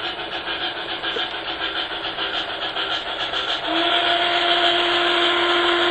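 Steam locomotive sound: quick, steady rhythmic chuffing, joined about two-thirds of the way in by a long steam whistle held on one steady pitch.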